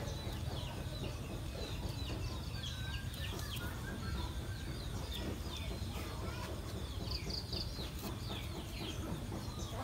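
Birds chirping: many short, quick downward chirps repeating throughout, over a faint low rumble.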